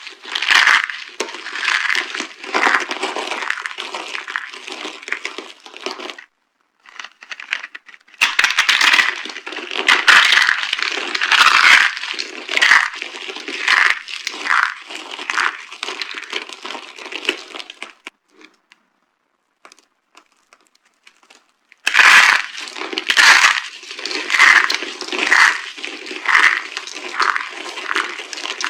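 Dry soap boxes being crushed, crunching and crackling in quick irregular crunches. They come in three bouts, with quiet pauses of a few seconds after the first and a longer one after the second.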